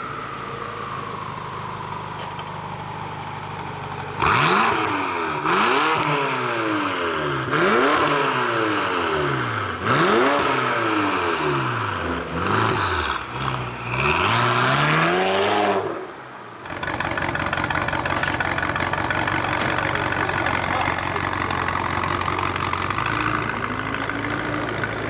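BMW X6M's twin-turbo V8, fitted with catless custom downpipes and a modified exhaust, idling, then revved hard again and again: a string of about seven sharp rises and falls in pitch from about four seconds in to about sixteen seconds. After a brief drop it settles back to a steady idle.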